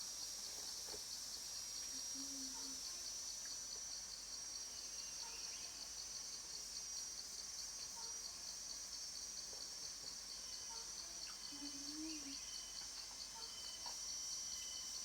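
Cicadas calling in a steady, continuous high chorus with a rapid even pulsing in it; a second, slightly lower steady whine joins about two-thirds of the way through.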